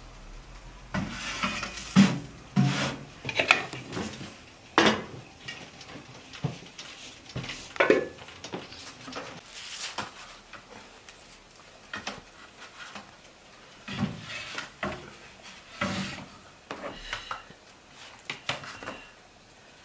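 Crisp baked lahmacun being laid and shifted onto a large metal tray: irregular clatters, scrapes and light knocks on the metal and the wooden table.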